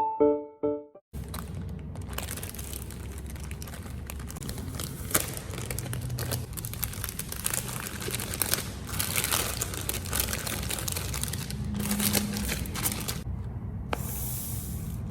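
Paper and plastic crinkling and rustling as they are handled, dense with quick crackles, broken by a short pause before a hiss near the end. A few closing piano notes fade out about a second in.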